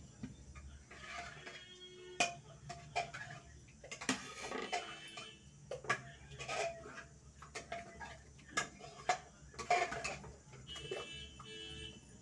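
Aluminium pots, a lid and a ladle clinking and knocking as food is handled and stirred: scattered sharp clinks, a few with a brief metallic ring.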